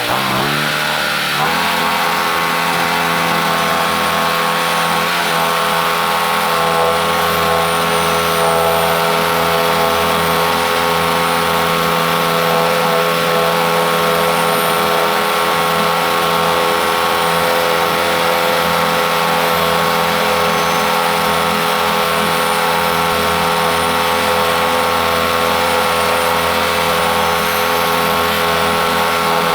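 Gas engine of a Norwood MX34 portable bandsaw mill speeding up over the first second or so, then running steadily at full speed while the band blade saws through a pine log.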